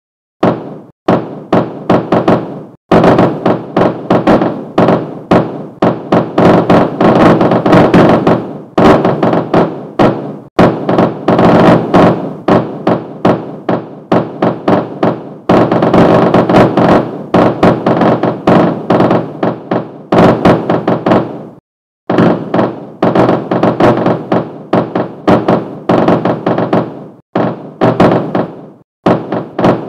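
Simulated sound of airburst blast waves from a 40 m asteroid broken into 1000 fragments, as heard at one point on the ground. A few separate sharp thuds come first. From about three seconds in they build into a dense, nearly continuous barrage of overlapping booms, broken by a few short pauses.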